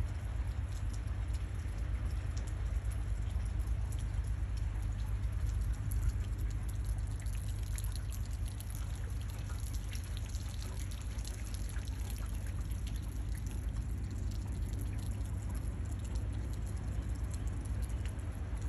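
Rain falling steadily, with many separate drop ticks over an even hiss and a steady low rumble underneath.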